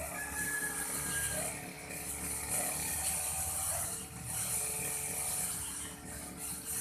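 Old Aldo brush-cutter engine running, with a hissing rasp that swells and eases every second or two as the cutter swings through grass.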